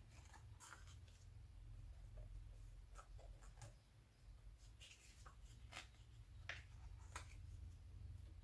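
Faint rustles and light clicks of magazine pages being handled and turned, scattered irregularly over a low steady hum.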